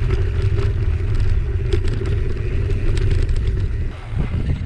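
Mountain bike riding fast down dry dirt singletrack, heard from a camera on the bike: a heavy wind rumble on the microphone, with a steady hum and the rattling clicks of the bike over the rough trail. The rumble eases briefly about four seconds in.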